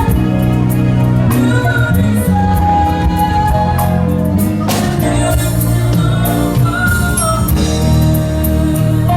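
Live gospel band music with a singing voice: sustained keyboard-like chords, a steady bass line and regular drum hits.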